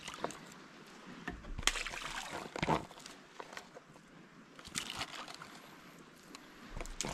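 Water sloshing and splashing in a few short surges, the loudest about two to three seconds in, with small clicks between them.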